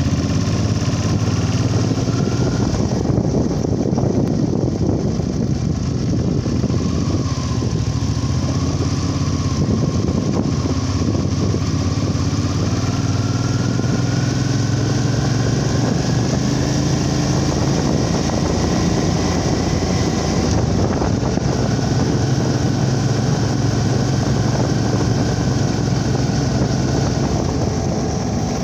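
Vehicle engine running as it drives slowly, with a steady low hum and a faint whine that climbs in pitch about twelve to twenty seconds in.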